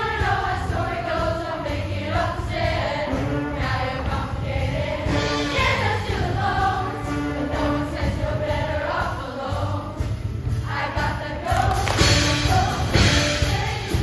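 Show choir singing in full chorus over instrumental backing with a heavy bass line, getting louder near the end.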